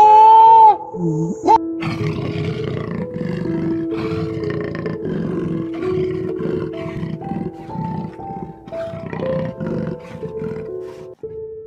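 A loud, drawn-out pitched animal call in the first second, then a run of rough, repeated animal calls about twice a second, over background music with a simple melody.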